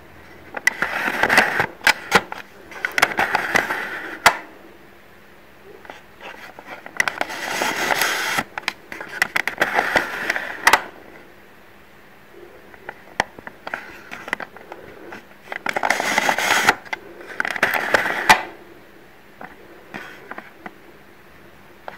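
Plastic clicking and rubbing from a toy View-Master camera viewer being handled and its button pressed to turn the picture disc, in three bursts of a few seconds each.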